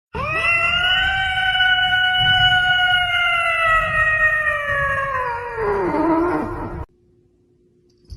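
One long animal howl that rises at the start, holds steady, then slides down in pitch and breaks off abruptly about seven seconds in, followed by a short near-silent pause.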